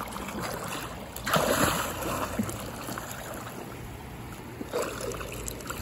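River water splashing as a swimmer ducks under to do a flip, loudest about a second and a half in, over a steady wash of moving water.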